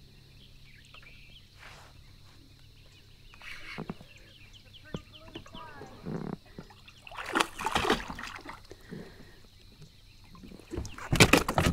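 A hooked bass splashing and thrashing at the water's surface beside a kayak as it is reeled in, in a few short bursts, the loudest near the end.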